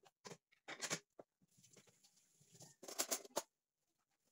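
Short rustling and clattering noises of things being handled on a kitchen counter, in a few separate bursts, the loudest about three seconds in.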